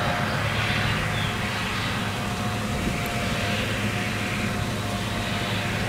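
Tractor pulling a loaded silage trailer, its engine running steadily with a low hum and a thin steady whine above it.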